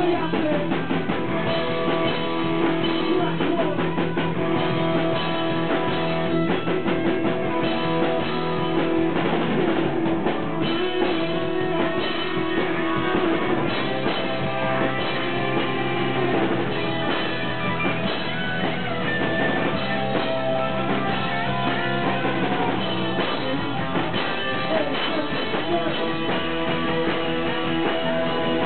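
Live rock band playing, with electric guitar and drum kit, the music dense and continuous at a steady loudness.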